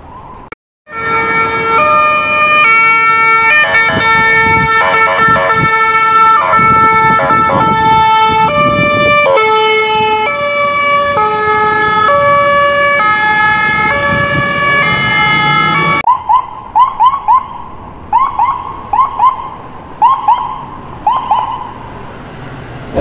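Electronic emergency-vehicle siren sound effect. A loud tone steps between several pitches for about fifteen seconds, then changes to short rising chirps in quick groups of two to four.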